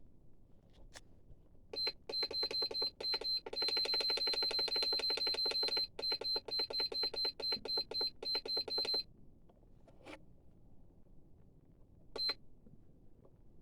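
Piezo beeper of a hobby LiPo balance charger sounding a run of rapid high beeps, about four a second, with one long unbroken beep of about two seconds in the middle, as the charger is set up to balance-charge. A single short beep comes near the end, with a couple of faint clicks.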